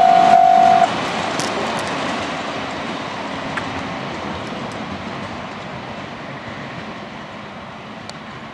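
A long freight train of two-axle covered wagons rolling past and moving away, the wheel and wagon noise fading steadily. A steady tone cuts off about a second in.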